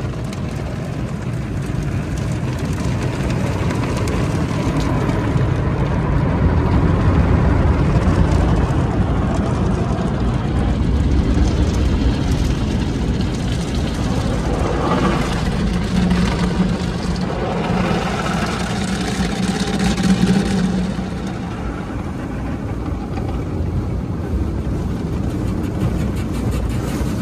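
Automatic car-wash tunnel heard from inside the car's cabin: water jets and foam spraying onto the windshield and body, a steady rushing over a low rumble. A low hum from the wash equipment comes in for a few seconds past the middle.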